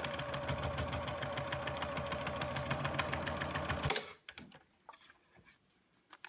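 Electric sewing machine stitching a seam through fabric and its paper foundation at a steady fast rate, stopping abruptly about four seconds in. Faint handling clicks follow.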